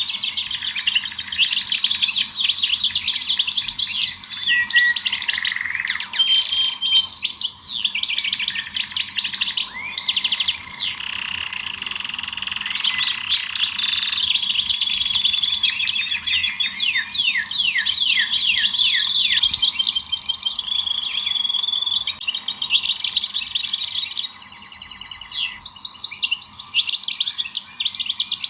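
Many small songbirds chirping and twittering together in a dense, continuous chorus of quick high chirps and trills.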